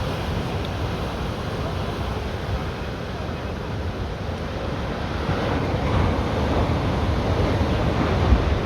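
Sea surf washing steadily, with wind buffeting the microphone and a brief low thump near the end.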